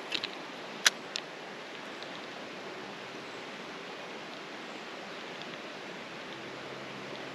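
Steady rush of flowing creek water, with a few sharp clicks in the first second or so.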